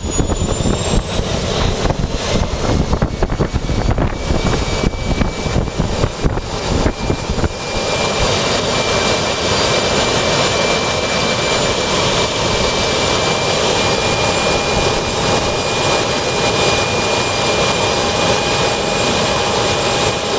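Handmade jet turbine engine running: a rough, uneven roar for the first seven or eight seconds, then a steady roar with a constant high turbine whine.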